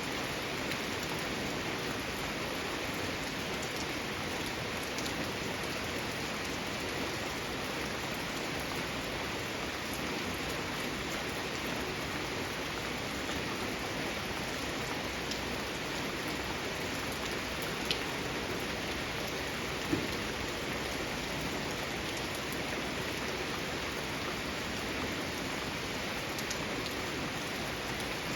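Steady rain falling in a garden, an even hiss with scattered drops, and two sharper single drips hitting something about two-thirds of the way through.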